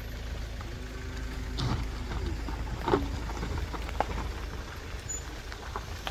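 Car driving along a road: a steady low rumble of engine and tyres, with scattered knocks and rattles, the sharpest about three seconds in.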